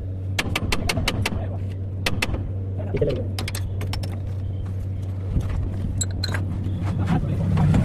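Light metallic clinks and taps, several in quick succession in short clusters, from metal tools and parts being handled, over a steady low engine hum.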